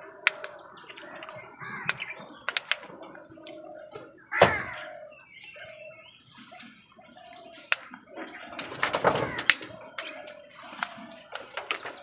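A flock of house crows squabbling over food: harsh caws, the loudest about four and a half seconds in and again around nine seconds, among sharp clicks of beaks pecking and wings flapping.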